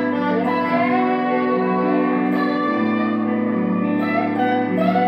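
Electric guitar music: slow, held notes overlapping one another over a steady low drone, the notes changing about once a second.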